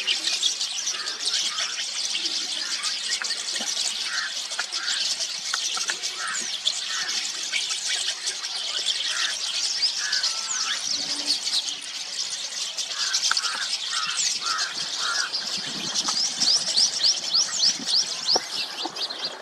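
A flock of rosy starlings chattering nonstop, many birds calling over one another in a dense stream of short, high squeaky notes and whistles.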